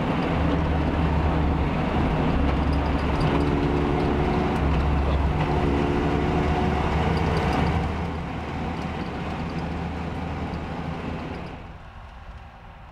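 Cab noise of a 1951 Land Rover Series 1 under way: its four-cylinder petrol engine and drivetrain running with a steady low drone. It eases a little about two-thirds of the way in, then falls much quieter near the end.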